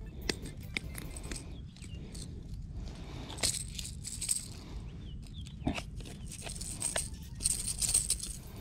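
Fishing tackle handled by hand: scattered light metallic clicks and clinks of a lure on a snap clip, with short rustles of handling.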